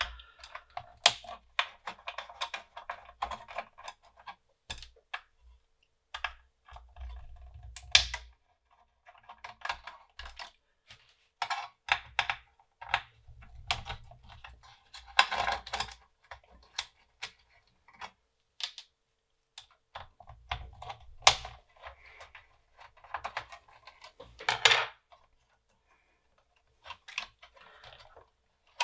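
Irregular clicks, taps and light clatter of small hard parts and tools being handled on a workbench, with a few dull low bumps in between.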